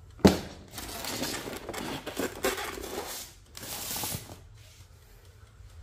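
A sharp knock as an Iris Ohyama induction cooktop is set down, then rubbing and scraping as it is shifted in its styrofoam packing tray, with a second short burst of scraping a little later.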